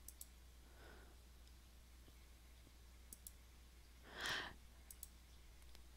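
Near silence with a low hum and a few faint computer-mouse clicks as slides are advanced. A brief soft breath about four seconds in.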